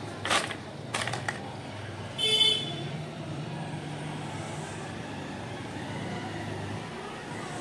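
A vehicle horn toots once, briefly, about two seconds in, over a steady low hum of road traffic. A couple of short clicks or scuffs come just before it.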